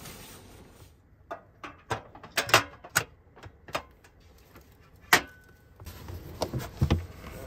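A run of sharp plastic-and-metal clicks and clacks as a butane cartridge is fitted into a portable cassette gas stove, with one loud click about five seconds in and a couple of duller knocks near the end.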